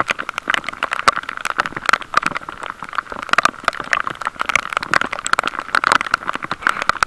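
Heavy rain striking close to the microphone: a dense, irregular stream of sharp ticks and taps.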